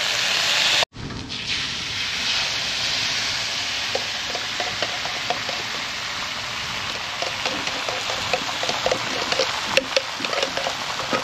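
Peppered turkey bacon frying: a steady sizzling hiss with scattered small pops. The sound drops out for a moment about a second in, then carries on.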